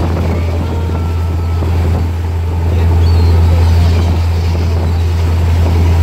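Tour boat's engine droning steadily at a low pitch, over the rushing of the churned-up wake water and some wind on the microphone. A few faint gull cries come through.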